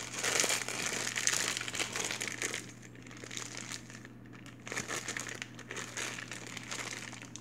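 Clear plastic wrapping crinkling as hands squeeze it and open it to take out a lump of white cold porcelain clay. The crinkling comes in two spells, with a lull a little before the middle.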